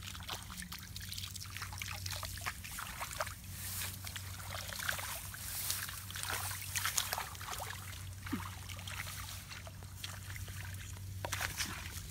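Shallow water splashing and trickling in quick, irregular little bursts, with a low steady hum underneath.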